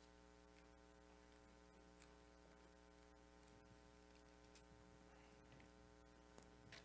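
Near silence: a faint steady electrical hum, with a few soft rustles and ticks of thin Bible pages being turned, the loudest near the end.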